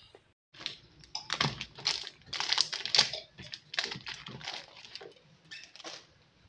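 A quick, irregular run of clicks, taps and rustles: small objects and paper being handled.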